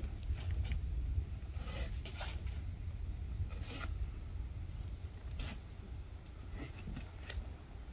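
A cardboard box being pulled and pried open by hand: short scratchy scrapes and rips of cardboard and packing tape, about ten of them at uneven intervals, over a steady low rumble.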